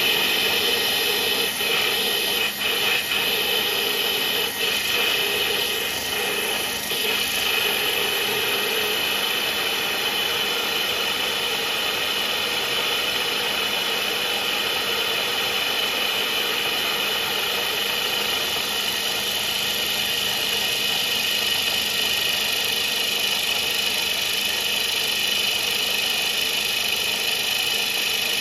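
Milling machine spindle running an Accusize 82-degree indexable carbide countersink as it cuts a countersink into an aluminium part, under a steady hiss of spray coolant. The cutting sound is a little rougher in the first several seconds, then settles to an even, steady noise.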